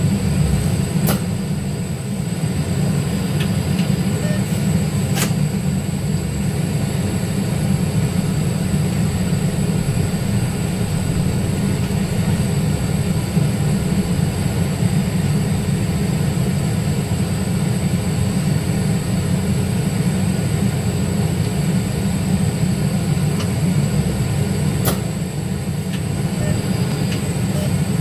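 Cabin noise at the front of a Heuliez GX337 battery-electric bus on the move: a steady low rumble, with a faint steady high-pitched whine and a few sharp clicks.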